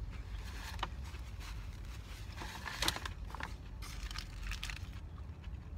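Close-up biting and chewing of a lettuce-wrapped cheeseburger, the crisp lettuce crunching and crackling in short bursts, loudest about three seconds in, over a steady low rumble.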